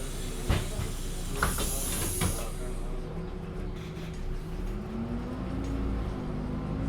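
MAN Lion's City city bus: compressed air hissing, with three clunks, until about two and a half seconds in. Then the diesel engine's note rises as the bus pulls away.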